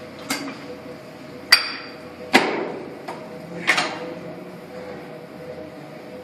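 Sharp metallic clanks of gym weights, four in quick irregular succession in the first four seconds, over a steady faint hum.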